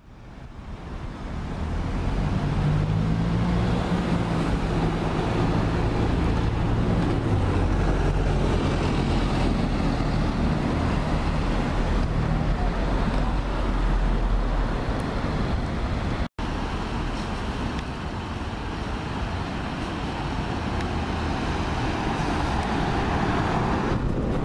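Dennis Dart SLF single-deck bus's diesel engine running with a steady low note amid street traffic, then pulling away. After a sudden break about two-thirds through, traffic noise continues with a Volvo B7RLE single-deck bus passing close near the end.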